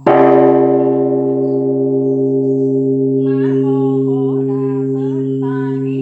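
Buddhist pagoda bell struck once, ringing on with a slow fade over a steady low hum; a voice begins chanting about three seconds in.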